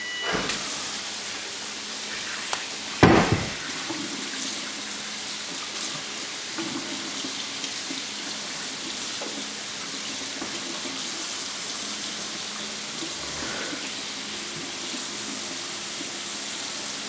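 Kitchen faucet running steadily into a sink while hands are rinsed under the stream, with a loud knock about three seconds in.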